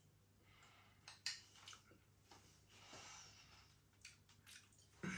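Near silence with faint eating sounds from someone chewing a mouthful of curry: a few small clicks and a soft breath.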